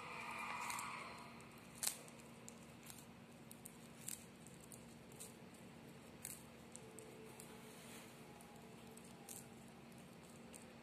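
A tortoise biting and tearing arugula leaves: faint, scattered crisp clicks and crunches, the sharpest about two seconds in, over a faint steady hum.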